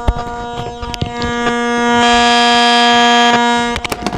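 Loudspeaker in a wooden speaker cabinet giving out a loud, steady electrical buzzing whine with many overtones. It is the whine and hiss that an added MP3/USB player module puts onto the speakers. A louder hiss swells in about two seconds in for over a second, with scattered small clicks.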